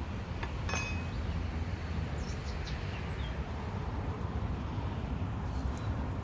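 Outdoor background with a steady low rumble, a single sharp metallic clink just under a second in, and a few short bird chirps around two and a half seconds in.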